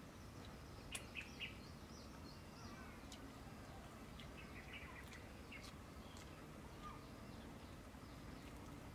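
Faint outdoor ambience with scattered bird chirps. A few sharp clicks about a second in, the loudest sounds, fit the crunching and handling of crispy fried frog being eaten.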